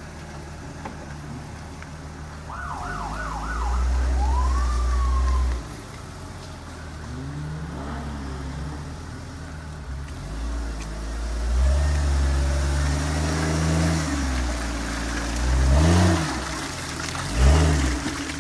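Engine of a lifted Jeep Cherokee XJ on oversized mud tyres, idling and then revving hard in several surges, rising and falling in pitch, as it works up a muddy slope. A brief warbling whistle sounds about three seconds in.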